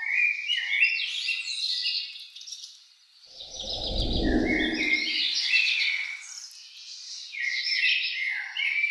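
Birds singing in quick chirping phrases, with a low rumble swelling in about three and a half seconds in and fading out a second and a half later.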